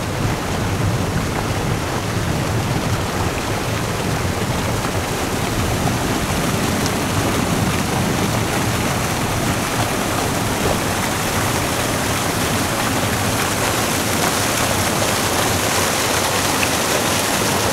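Fast-flowing water pouring and foaming over rocks: a steady, even rushing sound.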